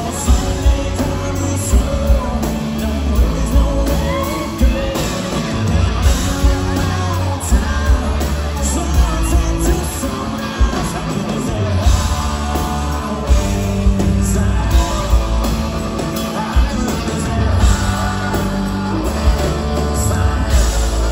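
Live rock band playing: electric guitars, bass and drums, with a male lead vocalist singing over them.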